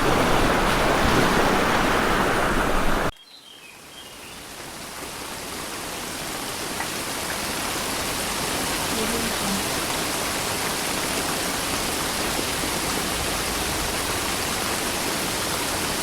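Steady surf-like noise of water cuts off abruptly about three seconds in. A steady rush of flowing water then fades in and holds.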